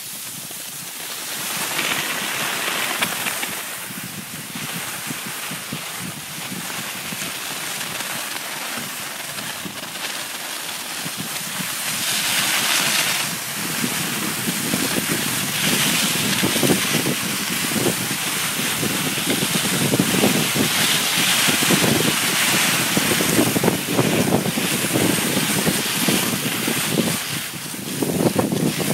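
Cross-country skis hissing and scraping over packed snow on a downhill glide, with wind rushing over the microphone. The sound grows louder and rougher about halfway through.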